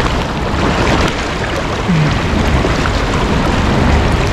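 Steady rush of river water and heavy rain, with a low rumble of wind on the microphone.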